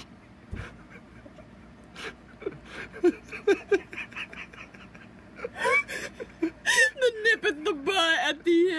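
Huskies whining and vocalising for food: short high-pitched cries that start a couple of seconds in, turn into rising and wavering yowls toward the end, mixed with a few sharp clicks.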